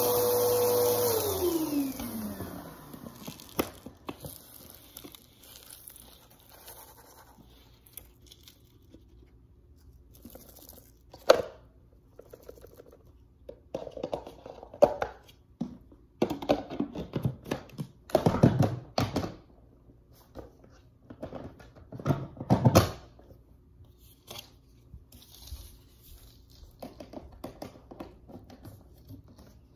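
Bissell upright vacuum cleaner's motor switched off, winding down in pitch over about two seconds. Then crinkly rustling, tearing and a few knocks as the packed lint and debris from the vacuum is handled, loudest in short bouts over the following twenty seconds.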